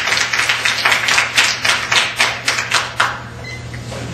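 Audience applause, a quick run of handclaps that stops about three seconds in.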